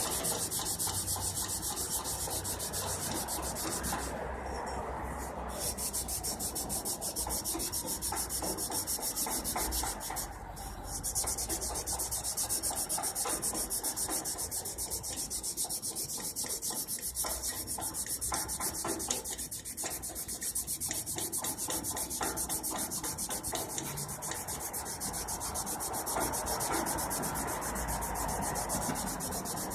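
Wet 400-grit sandpaper rubbed back and forth over a rusty, pitted chromed steel handle, a steady scratchy scrubbing that breaks off briefly twice. The sanding is working the rust pits out of the chrome.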